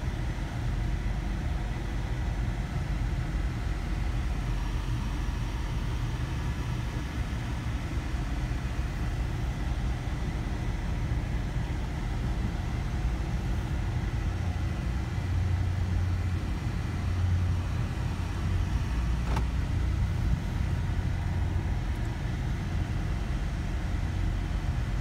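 A car's engine and tyres make a steady low rumble inside the cabin while driving, swelling a little about two-thirds of the way through.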